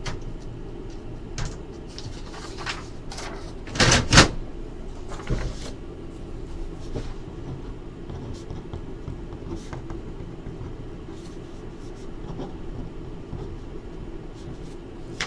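A few knocks and handling noises of objects being moved on a desk, the loudest a double knock about four seconds in, with lighter ticks here and there over a steady low hum.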